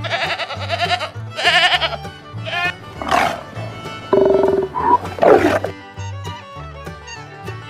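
Several short animal calls one after another over background music with a steady bass line. The calls stop about five and a half seconds in.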